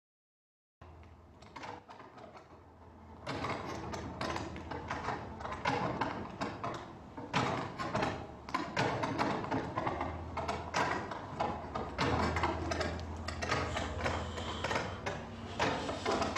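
Clear plastic bottles and lids crinkling and clattering against each other as they are handled and moved. It is an irregular run of clicks and rattles that starts faintly about a second in and grows louder after about three seconds, over a low steady hum.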